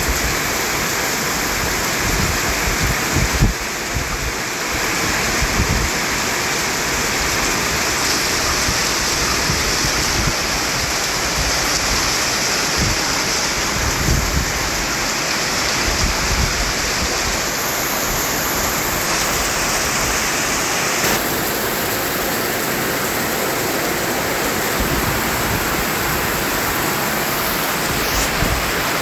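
Continuous white noise: a steady, full hiss with no pauses. Its tone changes slightly and abruptly a few times.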